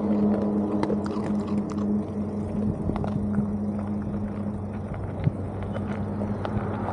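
Small electric RC car running, heard from a camera mounted on it: a steady motor hum under a rough rumble, with scattered small ticks and rattles.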